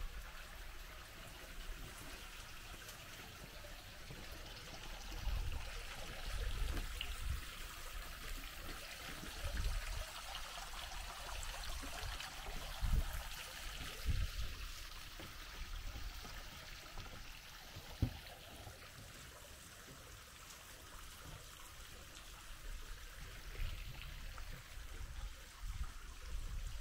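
Seawater lapping and trickling beneath a wooden plank pier, a steady wash of water sound broken by a few dull low thuds.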